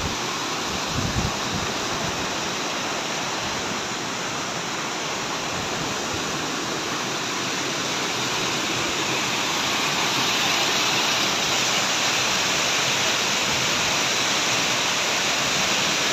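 Rainwater runoff in flood, rushing and churning over rocks and spilling down a waterfall: a steady, dense rush that grows a little louder from about nine seconds in. A brief low thump about a second in.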